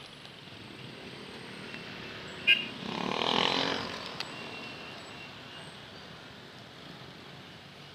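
Street traffic heard from a moving motor scooter: a steady road hum. About two and a half seconds in there is a short sharp sound, then a vehicle engine swells and fades over about a second.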